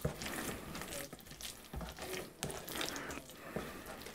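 Gloved hand squishing and kneading wet Celluclay paper-pulp clay mixed with brown paint in a plastic tub: irregular wet squelches, crackles and scrapes.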